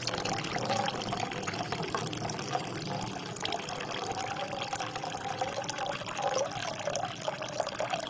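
Water running steadily into a vessel, with a gurgle that wavers in pitch throughout.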